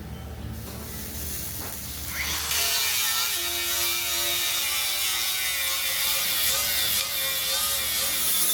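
Angle grinder with a 36-grit resin fibre disc grinding down a steel weld bead. The motor's pitch wavers under load, and the grinding grows louder and harsher about two seconds in.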